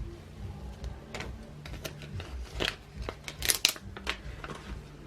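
Paper backing being peeled off a sheet of craft transfer tape: irregular crinkling and crackling of paper and plastic film, with a burst of sharper crackles about three and a half seconds in.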